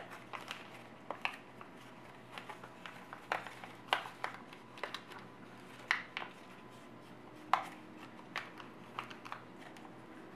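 Origami paper rustling and crackling as hands fold and pull open a small paper boat, in irregular short rustles with a few sharper crackles.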